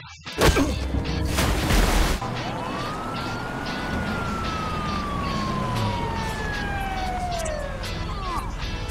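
Police car siren: one long wail that rises about two seconds in, then slowly falls in pitch as it winds down over several seconds, over a steady background rumble. Loud noisy bursts come just before the wail starts.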